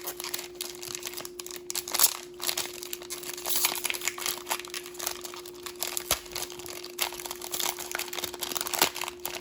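Packaging crinkling and rustling on and off as a pack of toy dog tags is handled and opened, with a sharper crackle about two seconds in, over a faint steady hum.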